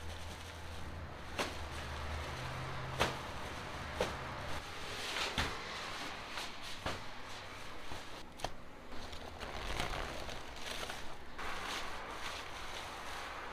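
Cloth flour sacks being shaken out over a dough-mixer bowl and handled: cloth rustling and flapping with several sharp knocks and thuds, the loudest about three seconds in. A low hum runs under the first couple of seconds, then stops.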